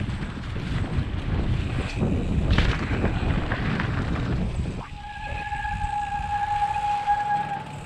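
Mountain bike rolling over rocky singletrack: rumble, rattle and wind noise at the action camera. About five seconds in the rumble drops off and a steady high-pitched disc-brake squeal sets in as the bike slows, stopping shortly before the end.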